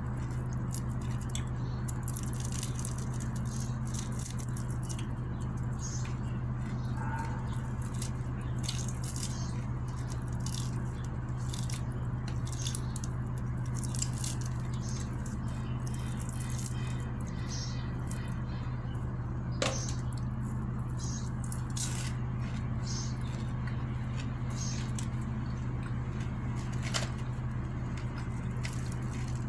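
Close-up eating sounds: chewing, with many small mouth and utensil clicks, over a steady low hum.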